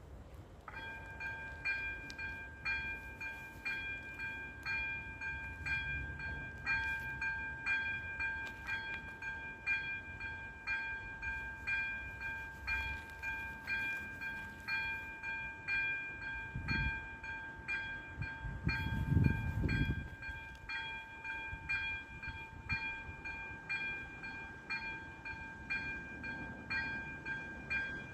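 Electronic warning bell of an AŽD 97 railway level crossing, switching on under a second in and dinging steadily at about one stroke a second to warn of an approaching train. A brief low rumble rises and falls about two-thirds of the way through.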